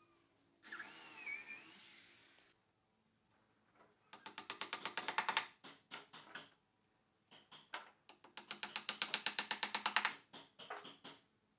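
A cordless drill whirs briefly, its pitch rising and falling, about a second in. This is followed by two spells of rapid, evenly spaced knocking, about ten knocks a second, each lasting a second or two, then a few single taps.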